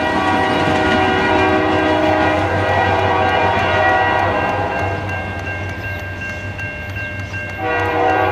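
Railroad grade-crossing warning bell ringing steadily over the rumble of freight cars rolling away; near the end the ringing gets louder.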